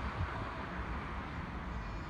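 London Underground 1995 Stock train running away along the track into the distance, a low steady rumble with wind buffeting the microphone.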